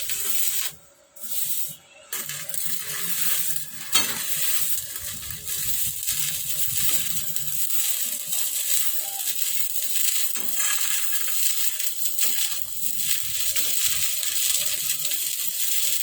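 Stick-welding arc crackling and sizzling as a welding rod burns, run off a Yamato 200-amp inverter welder. The arc drops out about a second in, is struck again, and then keeps burning steadily, with one sharp crack about four seconds in.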